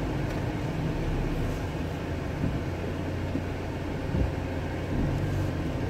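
Steady engine drone and road noise inside a moving vehicle's cabin while driving along a town road.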